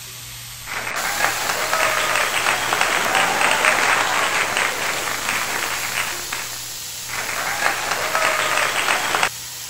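Crowd applause sound effect. It starts and stops abruptly, dips briefly a little past halfway and swells again.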